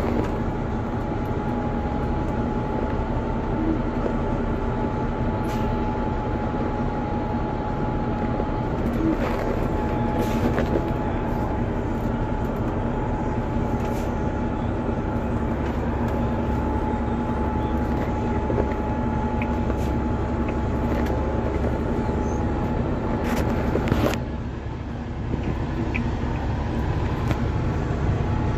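Heavy-duty tow truck running on the road, heard from inside the cab: a steady engine and road drone with a thin steady whine over it. Near the end there is a sharp clunk, after which the noise briefly drops.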